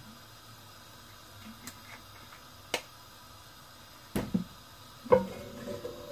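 A few light clicks, then two clunks with a short metallic ring, about four and five seconds in: a non-stick cooking pot being shifted and lifted on the gas stove's metal grate.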